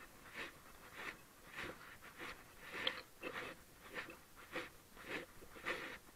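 Footsteps at an even walking pace on a concrete path, a little under two steps a second.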